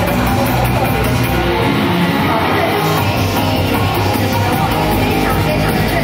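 Loud recorded Japanese pop song playing, with a sung vocal over a steady beat.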